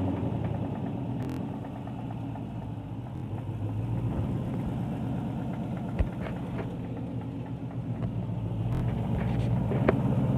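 2012 Ford Mustang GT's 5.0 L Coyote V8 running steadily near idle, with a knock the owner places in the bottom of the engine and suspects is rod knock. A short sharp click about six seconds in.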